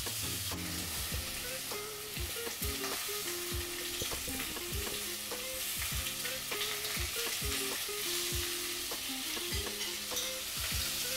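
Pork ribs sizzling steadily as they brown in their own fat in a pot, with soft irregular knocks and rubbing of hands working flour-and-water pasta dough on a stone counter.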